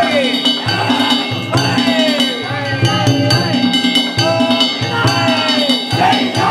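Danjiri festival music (danjiri-bayashi): taiko drums beat a repeating rhythm under the continuous clanging ring of metal hand gongs.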